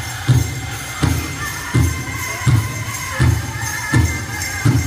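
Powwow drum song: a big drum struck in a steady beat, about four strokes every three seconds, under a group of singers, with bells jingling in time.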